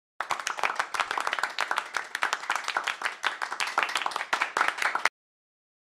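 Applause: many hands clapping rapidly, starting suddenly and cutting off abruptly after about five seconds.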